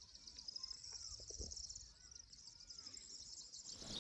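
Faint rural ambience: a steady chorus of insects trilling, with a few faint bird chirps. A louder outdoor ambience fades in near the end.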